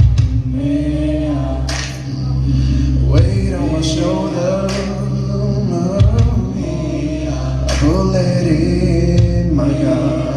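Choir singing a song over accompaniment with a steady low bass line.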